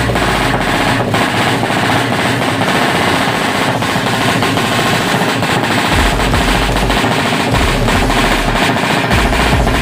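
Ported 155 cc Suzuki Satria FU motorcycle engine running hard on an open racing exhaust, a rapid rattling run of firing pulses, with background music underneath.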